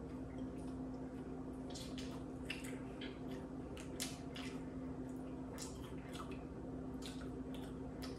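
Wet smacking and clicking mouth sounds of a person chewing pizza, irregular and close up, over a steady low hum.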